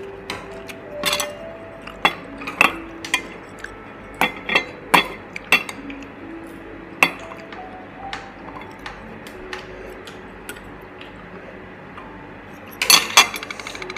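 Metal chopsticks clicking and clinking against a grill plate, a pot and bowls: scattered sharp taps throughout, with a quick cluster of louder clinks near the end, over a faint steady hiss.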